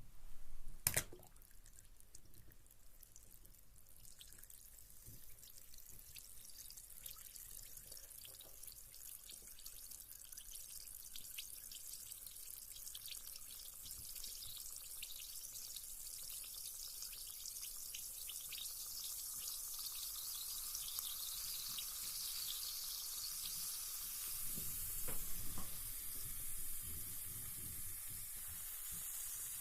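Carbonated bath bomb dropped into bathwater with a splash about a second in, then fizzing: a hiss full of fine crackles that grows steadily louder. A brief slosh of the water a few seconds before the end.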